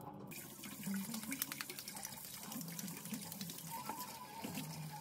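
Kitchen tap running into a steel bowl of boiled eggs in the sink, the water splashing steadily; it starts just after the beginning.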